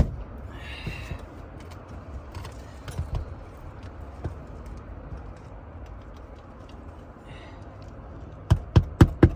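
Hammer striking a roofing nail into an asphalt shingle: four sharp blows in quick succession near the end. Before them come a few seconds of faint clicks and a brief scrape as the brittle shingle is handled.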